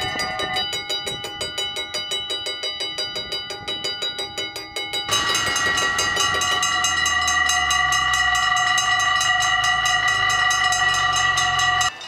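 Dutch railway level-crossing mechanical bells ringing with rapid, evenly spaced metallic strokes. About five seconds in, the sound cuts to a different crossing bell that rings louder and faster. A low rumble runs under it from about six seconds in.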